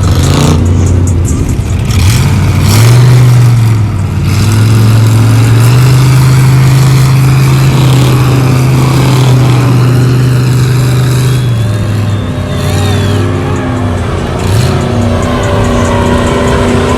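Mud truck engine revving hard. It is held at high revs for several seconds, then drops and climbs again.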